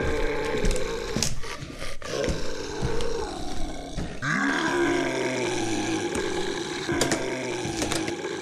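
Zombie growls: long, guttural vocal growls and groans that bend up and down in pitch, a new growl rising about four seconds in, with a few sharp knocks.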